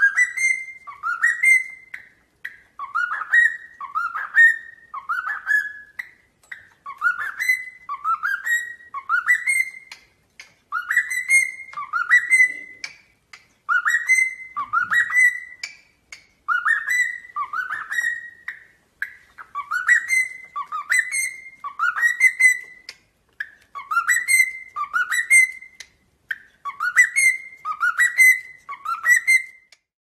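Cockatiel whistling the same short phrase over and over, each phrase a run of three or four rising notes, about once every three seconds.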